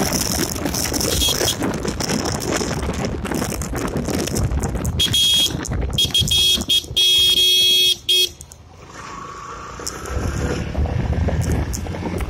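A vehicle horn sounds in a string of short honks, one steady pitch, starting about five seconds in and lasting about three seconds; it is the loudest sound. Around it is continuous wind rush over the microphone and a low motorcycle engine rumble while riding.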